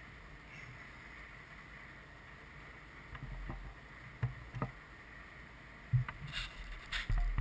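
Handling noise: scattered light knocks and bumps as a fuel injector is set back up on a bench test rig, over a low rumble. The loudest bumps come in the last second and a half.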